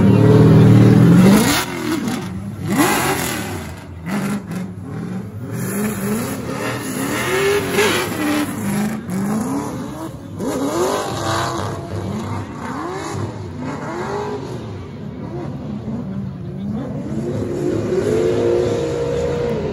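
Drift cars' engines revving up and falling back again and again, roughly once a second, as the drivers work the throttle through a slide. A very loud, close rev comes in the first second or so, with quieter cars further off after it.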